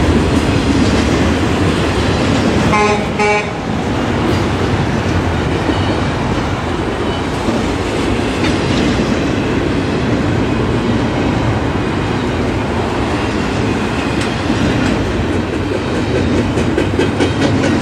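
Double-stack intermodal container cars rolling past at speed: steady noise of steel wheels on the rails with a regular clickety-clack. A brief pitched tone sounds about three seconds in.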